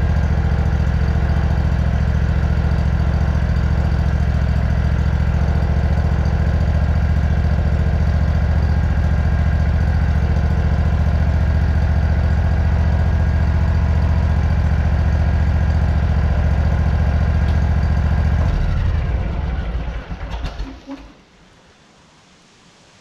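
Riding lawn mower engine idling steadily, then shut off about nineteen seconds in, running down unevenly over a couple of seconds to quiet.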